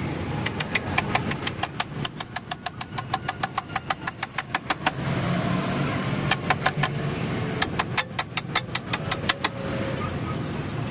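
Hand ratchet wrench clicking fast and evenly, about seven clicks a second, in three runs separated by short pauses, as a fastener on the motorcycle's front wheel is worked. A steady low traffic or engine hum runs underneath.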